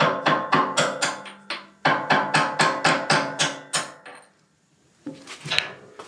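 A mallet striking a steel pivot pin on a tractor front-end loader, about four blows a second, each leaving a ringing tone. There are two runs of blows with a short break about a second in, and they stop about four seconds in. Faint handling noises follow near the end.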